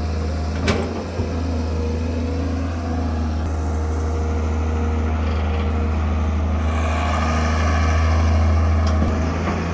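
Heavy machine's diesel engine running steadily with a low drone, building slightly near the end, with a sharp knock about a second in.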